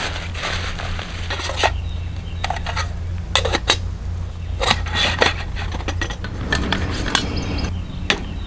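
Titanium camp cookware and cups clinking and knocking as they are unpacked from a mesh bag and set down on a folding camp table: a string of separate clinks and taps over a steady low rumble.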